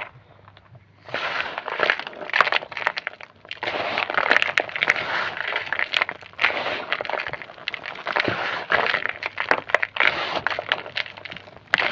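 Homemade grey gym chalk being crunched and crushed: dense crackling with many sharp snaps, starting about a second in and running on in close, busy spells with a short lull partway through.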